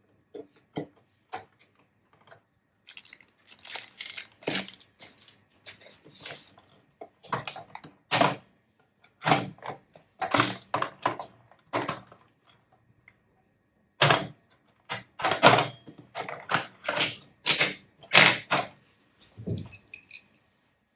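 A toy and its packaging being handled: irregular clicks, knocks and rustles, busiest in the second half.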